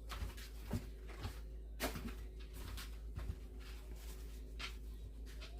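A few light clicks and taps of food and kitchen utensils being handled, over a low steady hum.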